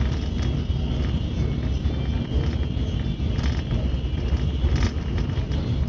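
Inside a high-speed airport express train running at speed: a steady low rumble with a faint high hum, and a couple of brief rattles about three and a half and five seconds in.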